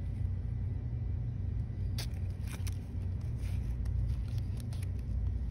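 Steady low background hum, with several brief rustles and taps as a hand handles and pats a stack of woven placemats.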